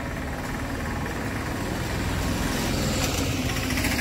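A motor vehicle engine running close by, getting a little louder toward the end.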